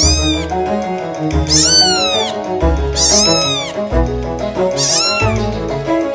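Kitten meowing: three high-pitched mews, each rising then falling in pitch, about a second or so apart, over background music.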